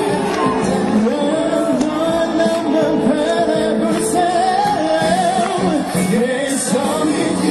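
Live pop song: a male vocalist singing into a handheld microphone over amplified backing music.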